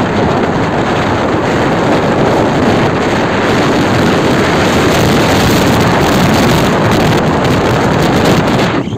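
Heavy wind buffeting the microphone: a loud, steady rushing noise that drops off abruptly just before the end.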